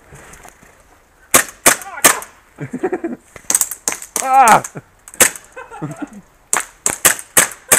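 Airsoft guns firing: about a dozen sharp single cracks at an irregular pace, some in quick pairs and runs, with a person's voice calling out briefly between them.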